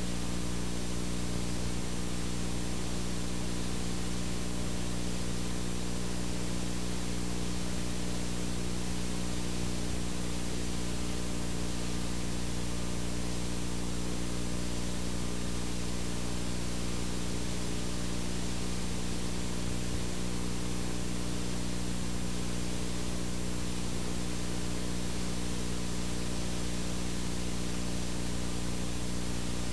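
Steady static hiss with a low mains-type hum under it, unchanging throughout: the noise of a blank analog video signal showing snow.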